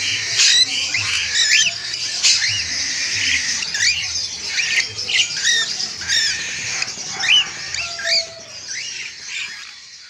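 Cockatiels calling with short, sharply rising whistles, several a second, over the steady chatter of many caged birds. It fades out near the end.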